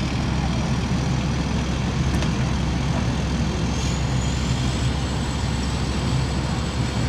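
Concrete mixer truck's diesel engine running steadily, a low, even rumble.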